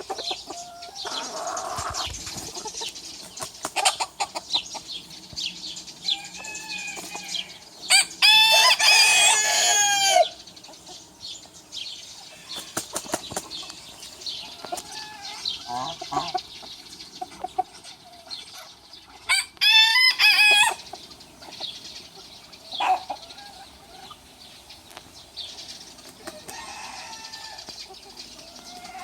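Rooster crowing twice, the second crow shorter than the first. Between the crows, chickens cluck softly and wings flap.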